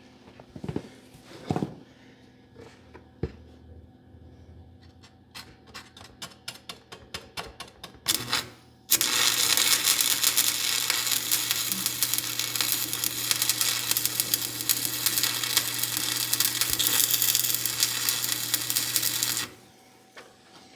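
Arc welding on a steel frame: a steady crackling hiss for about ten seconds that starts and cuts off suddenly. Before it come scattered clicks and a quick run of clicking on the metal.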